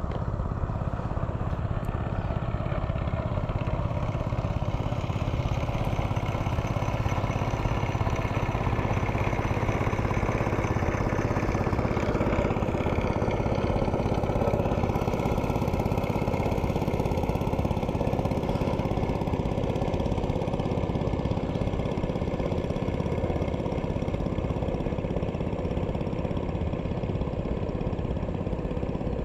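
Hangkai 12 hp outboard motor running steadily, driving the inflatable boat along.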